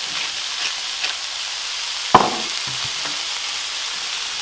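Chopped onions sizzling steadily in chicken fat in a large frying pan, with a single sharp knock about two seconds in, like a utensil striking the pan during stirring.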